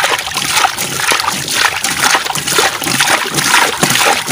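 Water poured over a tipped-up plastic toy dump truck bed, splashing and streaming off it into muddy water.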